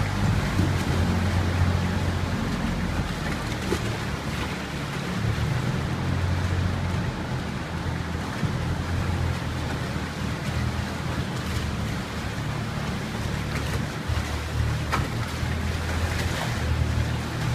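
Small tour boat's engine running steadily at low speed, with water rushing and lapping around the hull.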